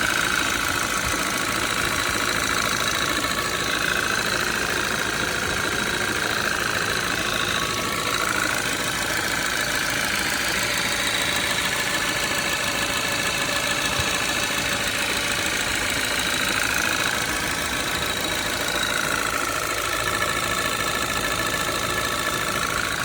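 Audi 2.0 TFSI gen2 four-cylinder turbo engine idling steadily with a knock in it, which the owner likens to a worn piston pin, though he isn't sure.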